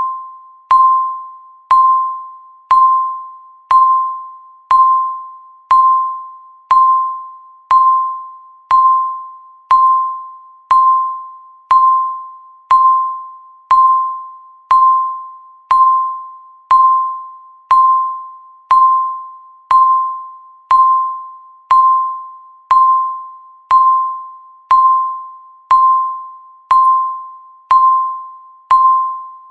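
A countdown timer's electronic tick sound: a short pitched beep near 1 kHz, fading quickly, repeated evenly once a second to mark each second of the countdown.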